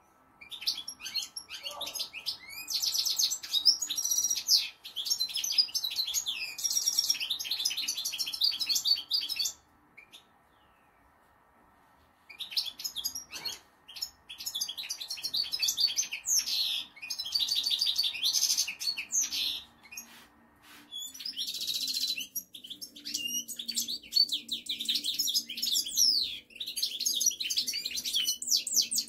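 European goldfinch singing: long runs of rapid, high, tinkling twitter. The song breaks off for a few seconds about ten seconds in, dips briefly near twenty seconds, and otherwise goes on without a stop.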